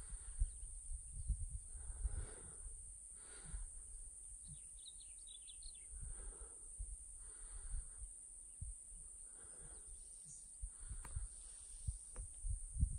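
Quiet outdoor ambience: a low, uneven wind rumble on the microphone, with a few faint bird chirps about halfway through.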